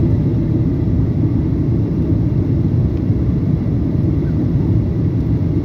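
Cabin noise inside a Boeing 737-800 in flight on approach: a steady low rumble of its CFM56-7B turbofan engines and the air rushing past the fuselage, unchanging throughout.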